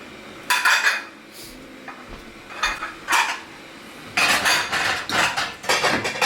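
Plates and cutlery clinking and clattering as a dishwasher is unloaded. There is a clatter about half a second in, a couple of single clinks around three seconds, and denser clattering over the last two seconds.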